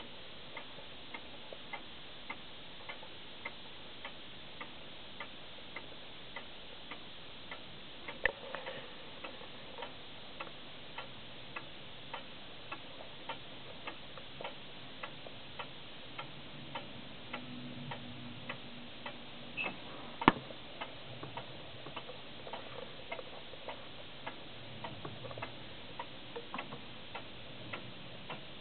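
Vienna-style spring-driven wall clock ticking steadily, a bit under two ticks a second. A louder click comes about 8 seconds in, and a sharp knock about 20 seconds in.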